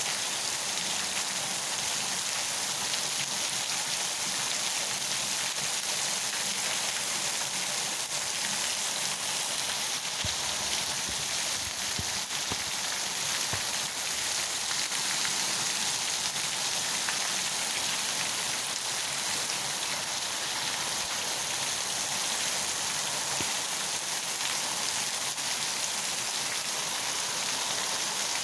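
Rain falling steadily without letup, an even hiss of drops.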